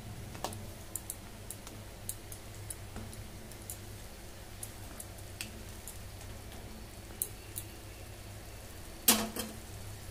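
Perforated metal slotted spatula scraping and tapping against a metal kadai while a curry is stirred: scattered light clicks, then one louder clang about nine seconds in. A steady low hum runs underneath.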